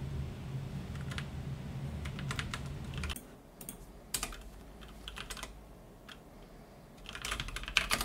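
Typing on a computer keyboard: short runs of keystrokes with pauses between them. A low hum underneath stops about three seconds in.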